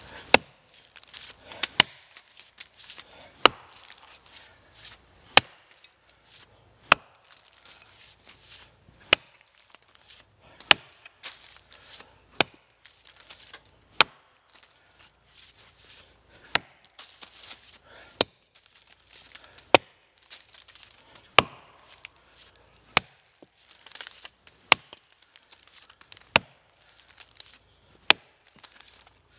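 Axe chopping into the roots of an oak tree at its base: a sharp, hard strike into the wood every one and a half to two seconds, in a steady rhythm of about seventeen blows.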